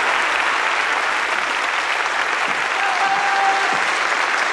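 Audience applauding steadily after a performance.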